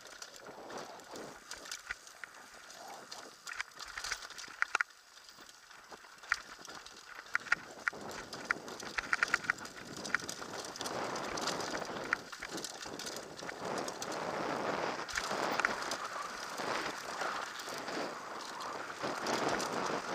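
Downhill mountain bike ridden fast over a rocky trail, heard from the rider's helmet: the bike rattles with many sharp clicks and knocks, then a denser rushing noise builds and stays louder through the second half.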